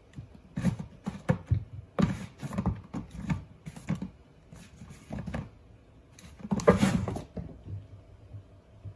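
Empty plastic washbasin knocking and rocking on a wooden floor as a kitten climbs in and out of it: a string of irregular knocks, with a longer, louder rattle about seven seconds in.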